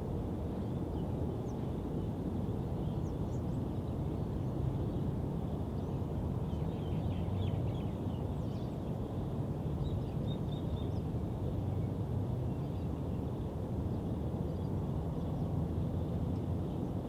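Suburban park ambience: a steady low-end rumble from the surrounding city, with faint bird chirps scattered through the middle.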